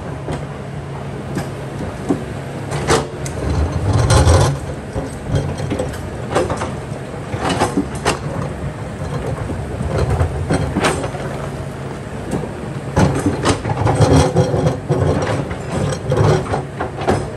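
Kobelco hydraulic excavator working rock: the diesel engine runs steadily under repeated clanks and scrapes of the steel bucket against stone. There are louder, heavier stretches about four seconds in and again near the end.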